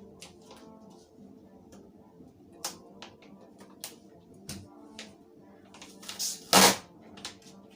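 Clear adhesive tape being handled and applied by hand: scattered light clicks and taps, then a short, loud rasp of tape pulled off its roll near the end.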